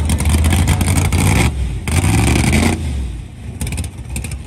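Fox-body Ford Mustang drag car's engine running loud and close, with a choppy, pulsing low note. It cuts out briefly about a second and a half in, comes back, then drops to a quieter level near the three-second mark.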